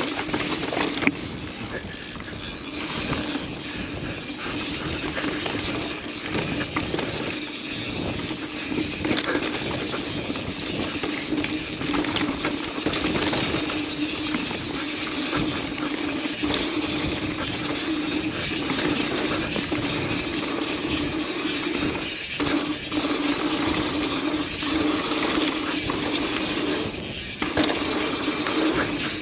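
Yeti SB150 mountain bike's rear freehub ratcheting in a steady buzz as the bike coasts downhill, over the rough rolling noise of the tyres on the dirt trail. The buzz breaks off briefly twice, about two-thirds of the way through and again near the end.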